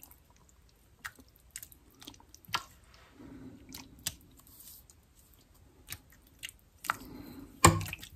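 Small wet, squishy sounds of canned mushroom pieces being picked out of a tin by hand and pressed into the broth around a roast in a slow cooker, with scattered light clicks. A sharp knock near the end is the loudest sound.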